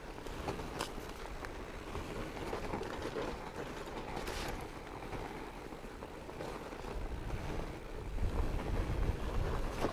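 Fat bike being ridden along a trail: a steady rumble of the wide tyres over the ground, with scattered clicks and rattles from the bike. The rumble grows louder towards the end.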